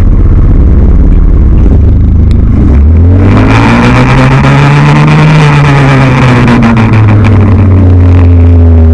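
A loud motor-vehicle engine running close by, low and steady at first, then its pitch rising from about three seconds in to a peak near the middle and slowly falling back again.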